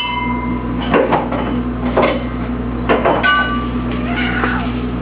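Crockery being handled while a dishwasher is unloaded: knocks and clatters of dishes about once a second, two of them ringing briefly with a clear tinkling tone, over a steady low hum.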